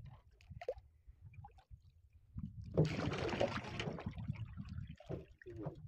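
Water splashing and trickling at the side of a small wooden boat as a baited hook line is hauled in by hand, louder for a couple of seconds in the middle, over a low rumble.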